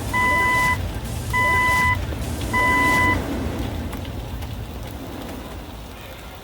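Three identical electronic beeps about a second apart, each a steady tone held about half a second, followed by a low hum that slowly fades out.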